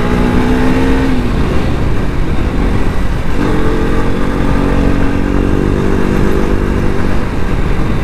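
KTM RC 200's single-cylinder engine running while the bike is ridden. The engine note falls away about a second in, comes back about three seconds in and holds steady, over heavy wind and road noise.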